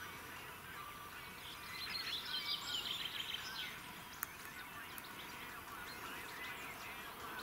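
Outdoor ambience with a small songbird singing a quick run of chirps about two seconds in, lasting a second or so. A single sharp click a little past the middle.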